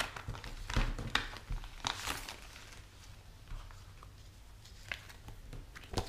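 Clear plastic 4x6 page protectors and their cellophane packaging crinkling and rustling as they are handled and sorted by hand: a cluster of crackles in the first couple of seconds, then a few scattered ones.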